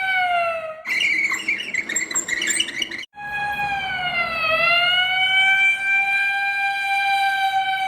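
Emergency vehicle siren wailing: a steady high tone that sags in pitch and slowly climbs back, with a sudden drop near the start and again near the end. About a second in it is cut off abruptly, and a noisier passage with chirping sounds runs for about two seconds before the tone resumes.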